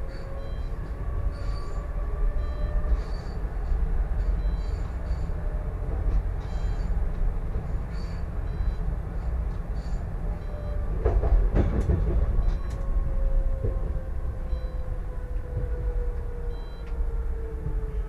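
Solaris Tramino S105p low-floor tram running on its rails, heard from the driver's cab: a steady low rumble with a faint electric motor whine that falls slowly in pitch through the second half as the tram slows. About two-thirds of the way through, a short cluster of knocks from the wheels on the track.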